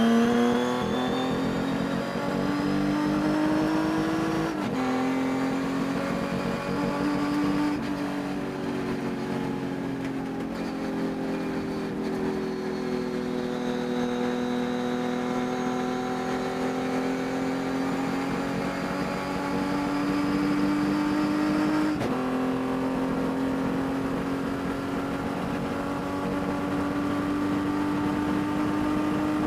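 Race car engine heard on board at racing speed, its note climbing slowly and dropping suddenly twice, about four seconds in and about three-quarters of the way through, as with gear changes. The engine was suffering a high-RPM miss through the race.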